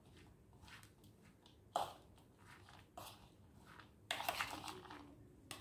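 A metal spoon stirring chopped raw cabbage, onion, capsicum and boiled corn in a plastic bowl: irregular crunchy rustles and scrapes, with one sharp clack about two seconds in and a louder spell of stirring a little after four seconds.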